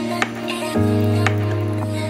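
Instrumental background music: sustained chords with a light tick about once a second, changing chord a little under a second in.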